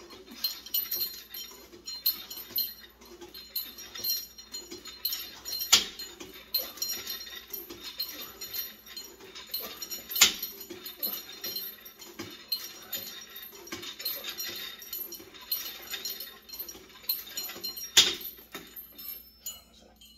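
Home gym cable machine worked through lat pulldown reps: the chain-hung handle and cable hardware jangle and click with each pull. The weight stack gives three sharper metal knocks.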